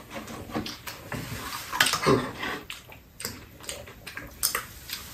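Two people eating from shared dishes: irregular light clicks and taps of spoons and chopsticks against bowls and a metal serving tray, with wet chewing sounds in between.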